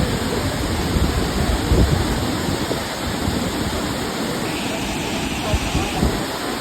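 Steady rushing roar of a large waterfall, with low rumbles of wind buffeting the microphone about a second or two in.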